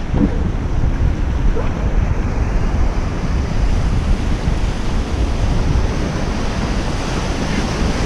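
Surf breaking and washing up a sandy beach, a steady rushing noise, with wind buffeting the microphone.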